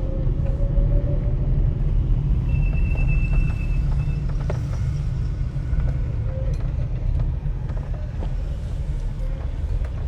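Car running at low speed with a steady low rumble of engine and road noise, as it pulls into a parking spot. A thin high steady tone sounds briefly, about two and a half seconds in.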